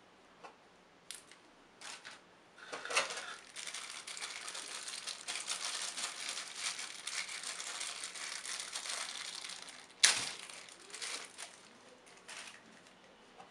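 Thin clear plastic wrapping bag crinkling as hands unwrap an accessory from it, continuous for about seven seconds after a few light rustles, with one sharp click about ten seconds in and a few softer rustles after it.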